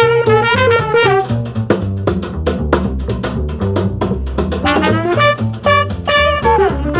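Swing jazz band playing: brass horn lines over drum kit and bass with a steady beat.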